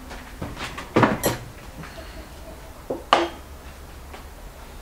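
Metal spoon clinking against ceramic plates while food is served from a platter: a few sharp clinks, two close together about a second in and two more about three seconds in.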